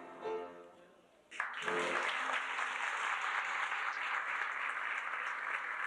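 A children's choir song ends with a fading note, then audience applause breaks out suddenly about a second and a half in and carries on steadily.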